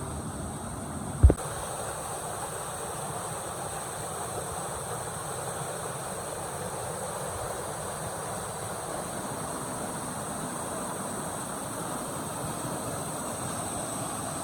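Waterfall and stream water rushing steadily into a pool. A single sharp, low thump about a second in.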